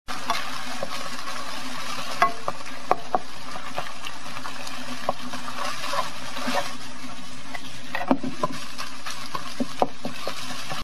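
Ground pork sizzling in a nonstick frying pan as it is stirred and broken up with a spatula, with scattered clicks and scrapes of the spatula against the pan.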